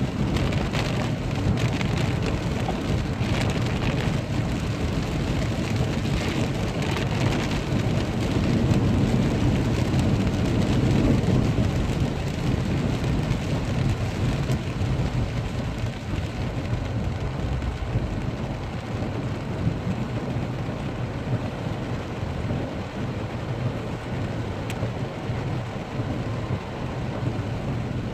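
Heavy rain pouring steadily, a dense hiss with a deep rumble underneath, swelling a little about ten seconds in.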